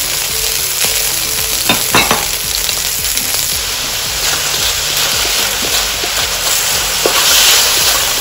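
Marinated chicken slices sizzling in hot oil in a wok while a wooden spatula stirs them, with a couple of sharp knocks of the spatula against the pan about two seconds in. The sizzle swells louder near the end as the pieces are tossed.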